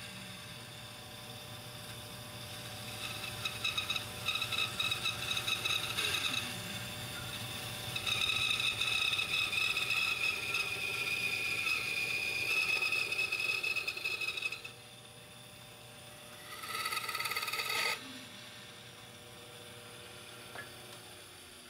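A power tool working wood: a steady whine that swells in three stretches, the longest about six seconds, and drops back to a lower hum in between and near the end.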